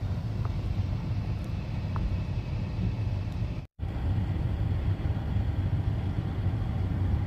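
Truck engine running with a steady low rumble, heard from inside the cab. It cuts out abruptly for a split second a little past halfway, then carries on.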